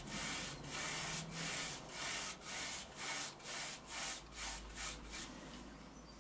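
Paintbrush bristles scrubbing across a woven cane chair seat in short strokes, about two a second, as light finishing oil is brushed diagonally into the weave; the strokes stop near the end.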